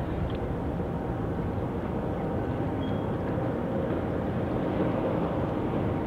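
Steady low rumble of vessel engines, with a few faint steady tones running through it.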